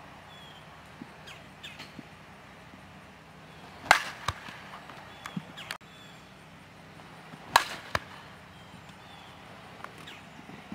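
Softball bat striking tossed softballs in batting practice: two loud, sharp cracks of contact, a few seconds apart, each followed by a lighter knock about half a second later.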